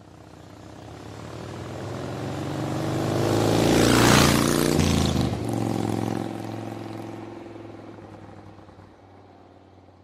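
Logo sting sound effect: a rushing whoosh that swells to a peak about four seconds in and then fades away, over a steady engine-like hum.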